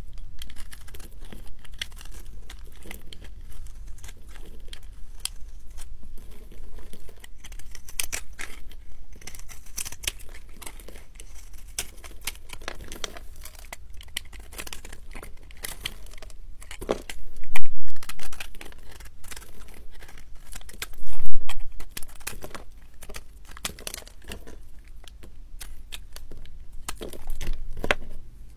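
Knife blade scraping and cutting into a ball of pressed recycled soap scraps, a dense run of short dry scrapes and crumbles as flakes break off, with two louder cuts about two-thirds of the way through. Near the end, fingers crush the pile of soap shavings.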